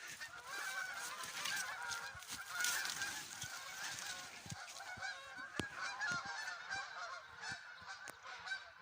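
A flock of Canada geese flying over, many birds honking at once in a continuous overlapping chorus.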